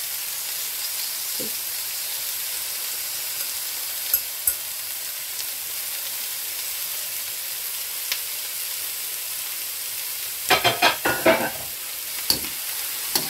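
Chicken pieces frying in hot oil and sauce in a wok: a steady high sizzle with a few light clicks. About ten seconds in, a short run of loud clatters as a metal spatula scrapes and knocks against the wok.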